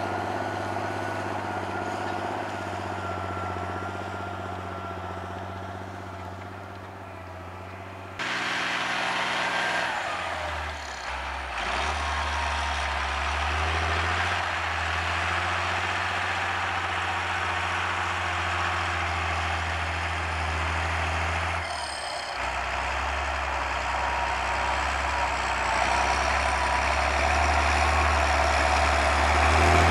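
John Deere 8200 tractor's six-cylinder diesel engine running steadily under load while pulling a plough through the soil. The sound fades a little at first, changes abruptly twice, and grows louder near the end as the tractor comes closer.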